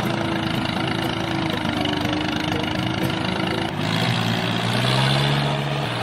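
A tractor engine running steadily; about four seconds in the sound shifts to a lower hum that rises slightly in pitch.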